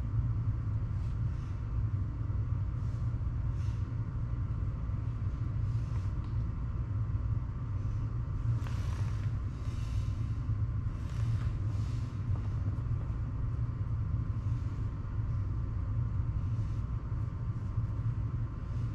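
Steady low rumble with a faint hum underneath, with faint scraping and handling noises as thread sealant is brushed onto the threads of a brass shower valve, most noticeable about halfway through.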